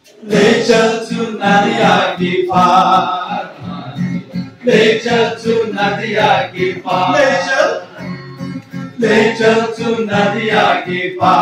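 Man singing a song into a microphone while strumming an acoustic guitar, in phrases with short pauses between them.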